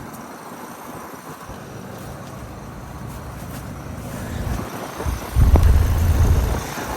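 2014 2-ton American Standard heat pump outdoor unit running in cooling mode, with a steady hum from its condenser fan and Copeland scroll compressor. About five seconds in, louder uneven low rumbling comes in over it.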